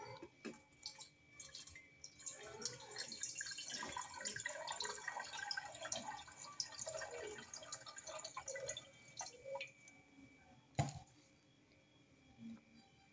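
Water poured from a plastic bottle into a stainless steel electric kettle, splashing and gurgling for several seconds before tailing off. A single sharp knock about eleven seconds in is the loudest sound.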